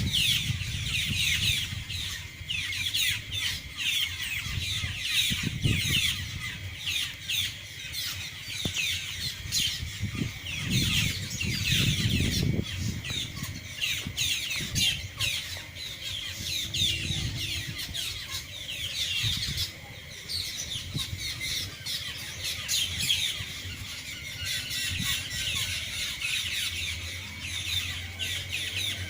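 A large flock of birds, called blackbirds by the uploader, calling all at once: a dense, unbroken chorus of short, squeaky, falling calls overlapping one another.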